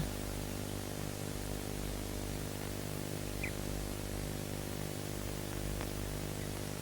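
Steady electrical hum and hiss on the recording, unchanging throughout, with one faint short chirp about halfway through; no clear sound of wading or water.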